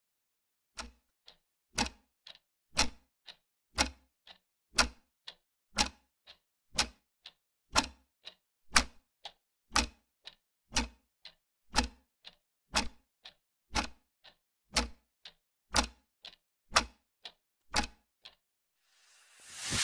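A clock ticking steadily, about two ticks a second, loud and soft ticks alternating. It stops near the end as a rising hiss begins.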